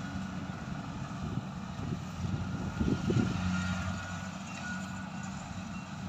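Rice combine harvester's engine running with a steady drone while harvesting, with irregular low rumbles over it, strongest about three seconds in.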